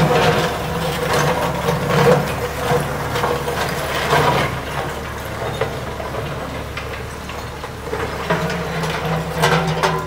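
JCB 3CX backhoe loader's diesel engine running under hydraulic load as the backhoe arm and bucket move, its pitch rising and falling, with several sharp metallic clanks.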